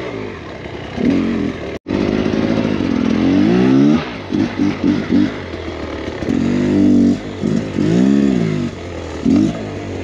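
2023 Beta X-Trainer 300 two-stroke dirt bike engine revving up and down in short repeated throttle bursts under load. The sound cuts out for an instant just under two seconds in.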